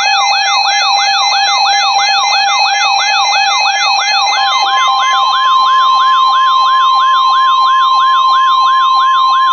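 Emergency alert tones: a siren-like wail sweeping rapidly up and down about three times a second over a steady alert tone. About halfway through, the steady tone gives way to a higher steady tone.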